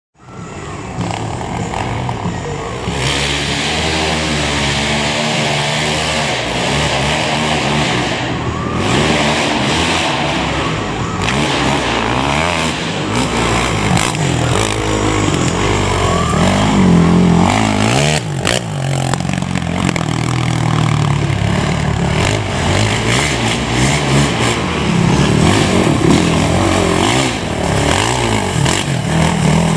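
Quad (ATV) engines revving, the pitch rising and falling again and again as they accelerate and ease off on a muddy offroad track. The sound fades in from silence at the start.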